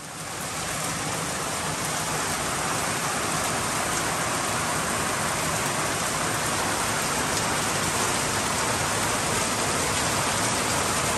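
Heavy rain falling steadily on a clear corrugated plastic roof and the garden around it, fading in over the first second.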